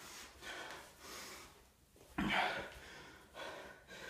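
A man breathing hard and out of breath after a long set of push-ups, with heavy gasping breaths about once a second; the loudest comes about two seconds in.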